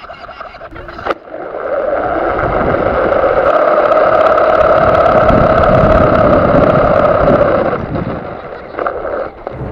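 RC car driving over gravel: a steady motor whine over the crunch of its tyres, starting up about a second in and easing off near the end.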